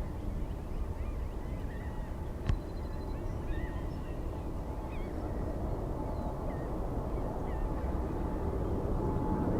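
Steady low rumble of jet aircraft engines, growing louder toward the end, with many short bird calls over it. One sharp click about two and a half seconds in.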